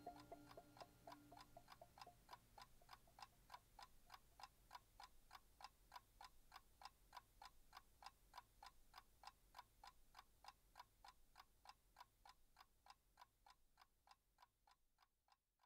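Faint, even ticking, a little over three ticks a second, left as the soundtrack music fades out. It dies away near the end.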